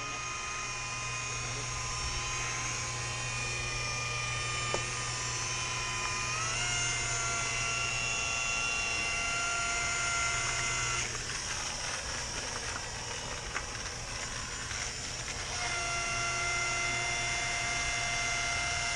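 Handheld electric glass polisher whining steadily as its pad works on window glass. Its pitch steps up a little about six seconds in; the clean whine gives way to a rougher noise about eleven seconds in, and a steady whine returns about four seconds later.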